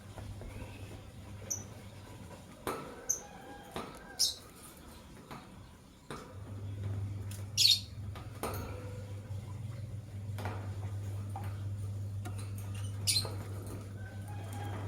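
Lovebirds giving three short, shrill squawking calls, the loudest about halfway through, among scattered sharp clicks and taps. A steady low hum runs underneath and grows stronger from about halfway.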